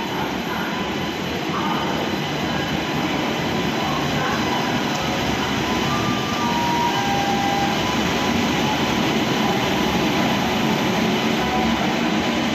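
Train running on the tracks: a steady rumble and rattle that grows slightly louder, with a few faint, brief high tones over it.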